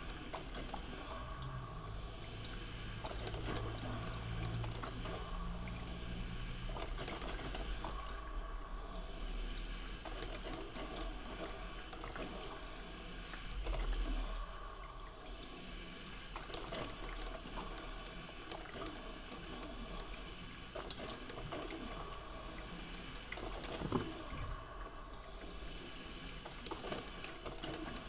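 Coffee maker brewing, its water sounds running steadily with scattered small clicks. A low hum runs for the first several seconds, a louder knock comes about halfway through, and a sharp click comes near the end.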